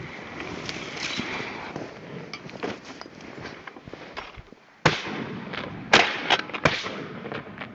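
Shotgun fired several times in quick succession: one shot about five seconds in, then three more close together about a second later.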